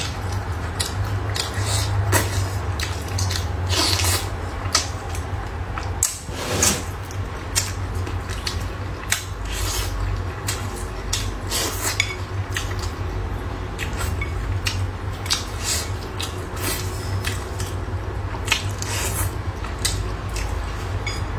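Eating at the table: irregular light clicks and knocks of chopsticks and tableware against bowls and dishes, with chewing, over a steady low hum.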